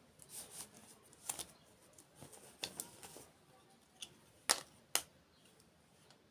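Close-miked crunchy eating: a series of sharp crunches and crackles from biting and chewing dessert, the loudest two near the end.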